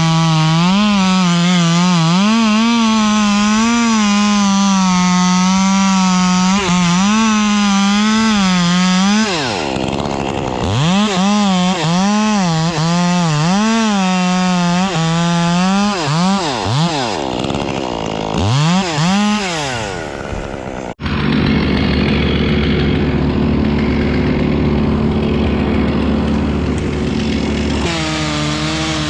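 Two-stroke chainsaw running at full throttle, its pitch wavering as it cuts wood, then revved up and down repeatedly. About two-thirds through, the sound breaks off abruptly and a lower, steadier engine sound follows.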